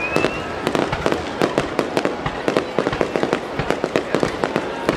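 Aerial firework shells bursting in quick succession: a dense, irregular run of sharp bangs and pops, several a second, with a short rising whistle at the start.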